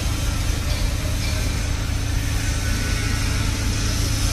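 Heavy machinery running with a steady low engine drone, unchanging throughout.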